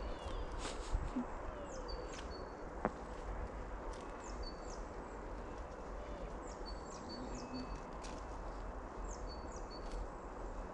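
A small songbird repeating a short, high-pitched phrase about every two seconds, over a steady low background rumble outdoors.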